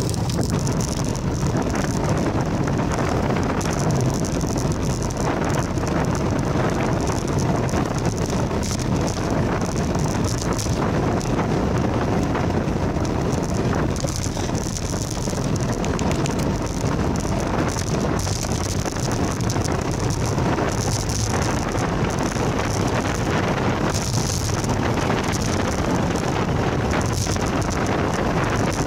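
Steady wind rush on the microphone with rumble from tyres rolling on asphalt, heard while moving along a road.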